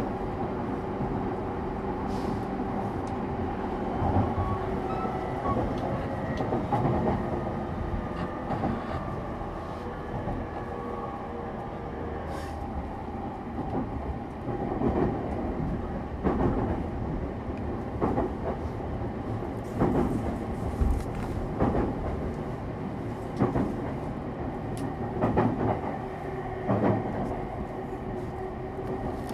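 A JR East E231 series suburban train's motor car running at speed, heard from inside the car: a steady hum with several held tones from its Hitachi IGBT-VVVF traction equipment and motors. From about halfway through, rail joints clack under the wheels roughly every one and a half to two seconds.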